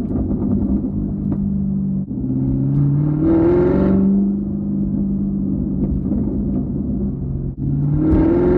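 Camaro ZL1's supercharged 6.2-litre V8 through a Corsa NPP exhaust, running steadily between two hard pulls. Each pull comes after a brief drop in the sound, about two seconds in and again near the end, and the exhaust note climbs in pitch and gets louder.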